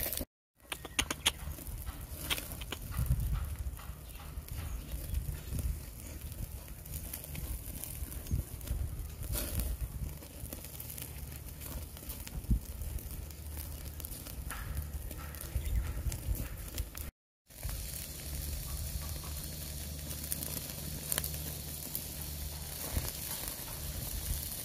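Tomahawk steaks sizzling on a wire grate over a charcoal fire, with irregular crackles and pops from the fat and coals over a steady low rumble. The sound drops out briefly twice.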